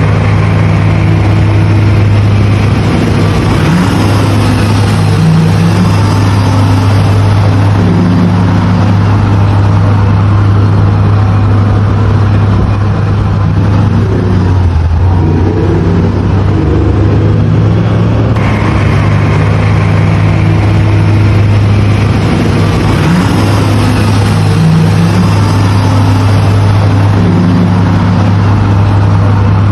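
Diesel tractor engine running steadily with a low, even hum; its pitch dips briefly about halfway through.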